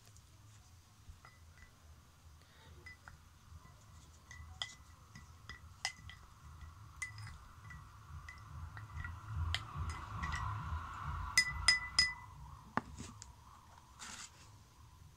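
A stirring stick clinking and tapping against a drinking glass of water as soap is stirred in it: light, repeated ringing ticks, with a quick run of three louder clinks about three-quarters of the way through.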